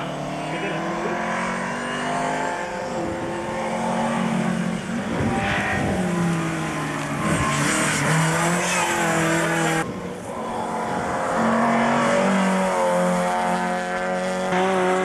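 Rally car engines revving hard through a bend, the pitch climbing and dropping in steps with gear changes as the cars go by. The sound changes abruptly about ten seconds in.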